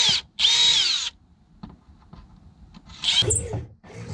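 Power drill boring a hole through a boat hull, run in four short bursts, two at the start and two near the end. Its motor whine rises and falls in pitch as the trigger is squeezed and let go.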